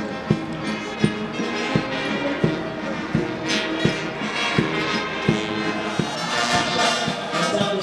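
Band music with a steady drum beat, a stroke about every 0.7 seconds, under sustained instrument notes; the sound brightens with more high-pitched shimmer near the end.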